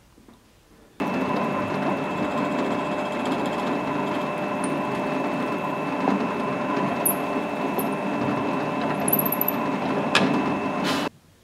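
Drill press running with a steady whine as its bit drills a hole down through a knife's wooden handle scales. It starts abruptly about a second in and stops just before the end.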